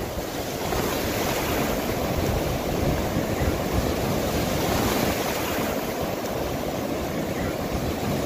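Steady rushing of wind on the microphone mixed with the wash of sea water.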